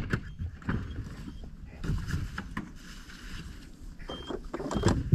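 Wind rumbling on the microphone, with irregular knocks and rustles close to it.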